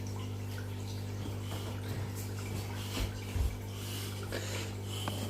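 A steady low hum with faint scattered clicks, and two soft low thumps about three seconds in.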